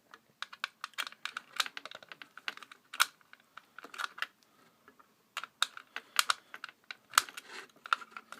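Irregular light clicks and taps from small hand work: wires being fitted and fastened at a fire alarm's screw terminals. There is a short lull about halfway through.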